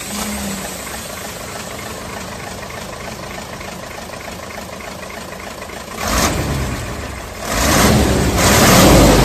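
Truck engine idling steadily, with a brief louder surge about six seconds in and a longer, louder surge near the end.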